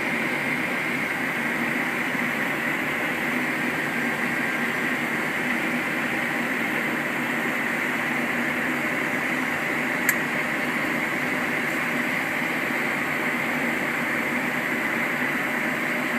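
Steady flight-deck noise of a Boeing 737-800 during taxi: an even hiss of air-conditioning airflow over the hum of the engines at idle, with a single small click about ten seconds in.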